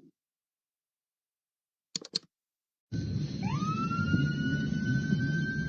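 Two short clicks, then a siren starts about three seconds in over a loud low rumble. It rises in a glide and holds one steady high tone.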